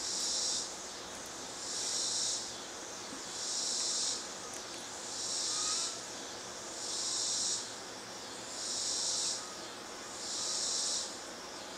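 An insect calling in a steady rhythm: a high buzz, each under a second long, repeated about every second and a half to two seconds, over a steady background hiss.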